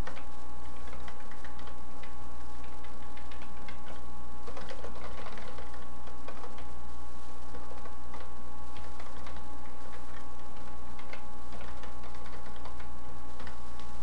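Computer keyboard typing: short irregular key clicks in quick runs, over a steady electrical hum with a faint constant whine.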